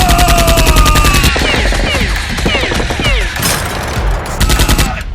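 Rapid automatic gunfire sound effects: a long burst at the start, then shorter bursts later, with several falling whistle-like tones between them.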